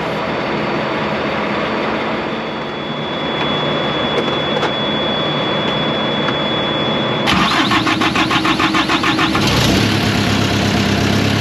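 A trailer refrigeration unit's small diesel engine cranks with a rapid, even chugging for about two seconds, then catches and settles into a steady run. This is its first start after being cleaned and repaired.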